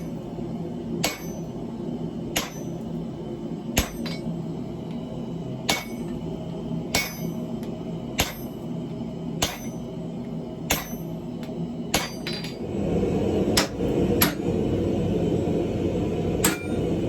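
Single hammer blows on metal at the anvil, each one ringing, about one every second and a bit, over a steady low hum. About three-quarters of the way through, a louder steady mechanical noise comes in under the blows.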